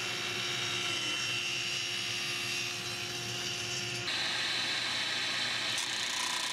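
A table saw running steadily, its tilted blade chamfering the edge of a wooden frame. About four seconds in it gives way abruptly to a disc sander's motor running with a different steady hum.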